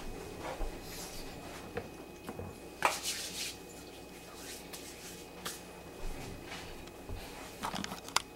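Faint rustling and light knocks of hands being dried and things handled at a kitchen sink after hand-washing, with the loudest rustle about three seconds in. Near the end come a few clicks of the camera being picked up.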